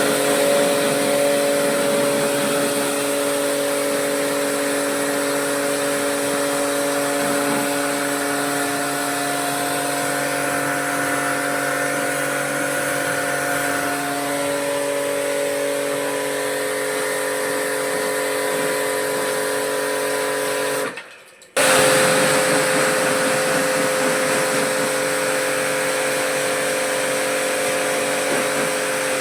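High-pressure spray gun running steadily: a motor hum with a hiss of water spray. It cuts out for under a second about two-thirds of the way through, then starts again.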